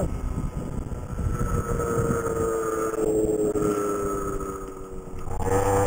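Small 49cc CAG two-stroke scooter engine running at part throttle around 4,000 RPM, its note sagging slowly as the scooter loses speed, with wind noise on the microphone. Near the end the engine note grows louder and fuller.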